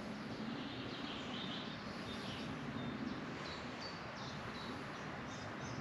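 Quiet streamside ambience: a steady background hiss with short bird chirps now and then.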